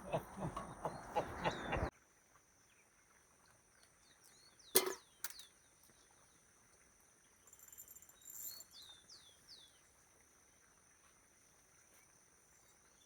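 Quiet outdoor ambience with small birds chirping faintly, repeated short downward-sliding chirps, over a steady high whine. There is a single sharp click about five seconds in. Louder jumbled noises in the first two seconds cut off abruptly.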